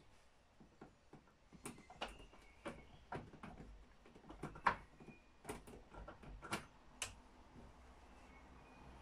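Irregular clicks and knocks of the chainsaw's bar, chain and plastic side cover being handled and fitted by hand on a workbench, the loudest knock a little under five seconds in.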